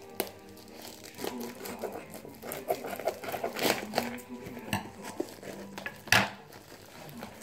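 Plastic bubble wrap and packing film crinkling and tearing as a parcel is unwrapped by hand, with a sharp, loud crackle about six seconds in.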